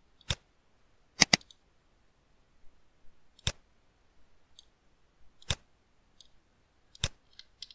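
Computer mouse clicks: single sharp clicks every second or two, with a quick double click about a second in and fainter ticks between them.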